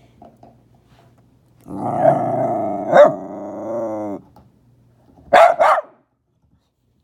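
A dog growls for about two and a half seconds, then gives two quick barks about a second later.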